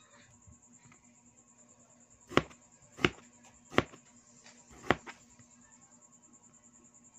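Cleaver chopping a cucumber into slices on a plastic cutting board: four sharp knocks about two and a half seconds in, each under a second apart.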